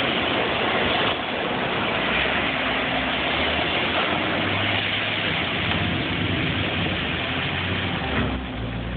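Wood chips pouring out of a tipped semi-trailer onto a pile: a steady rushing hiss over a steady engine hum. Near the end the pour thins, the hiss eases, and the engine hum comes forward.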